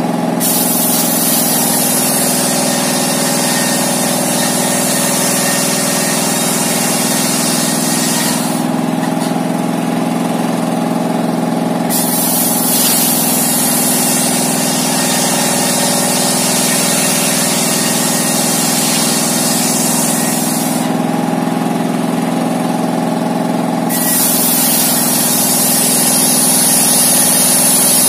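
Diesel engine running steadily as it drives a homemade table circular saw, the blade ripping wooden boards lengthwise. A high hiss of cutting comes in three stretches, dropping away twice for about three seconds between cuts while the engine keeps running.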